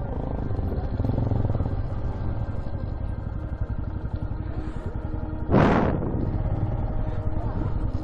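Motorcycle engine running steadily under way, with a brief loud rush of noise a little over halfway through.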